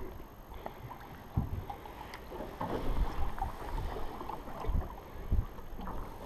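Water lapping against the boat's hull, with several dull low thumps.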